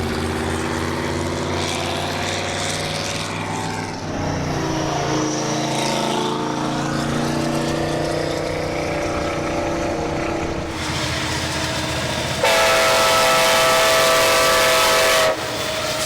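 Vehicle engine running under way, its pitch shifting, then a loud steady train horn blast begins about twelve seconds in and cuts off about three seconds later.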